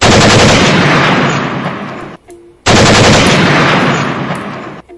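Two bursts of rapid automatic gunfire, each about two seconds long, loudest at the start and dying away, the second beginning about two and a half seconds in.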